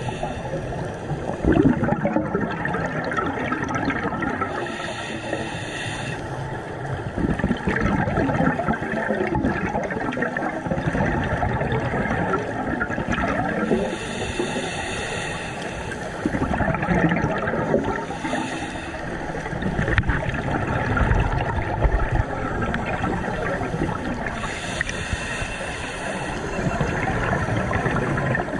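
Underwater recording of scuba breathing: a continuous bubbling and gurgling of exhaled air from the divers' regulators, with a hiss of breath through a regulator three times, about ten seconds apart.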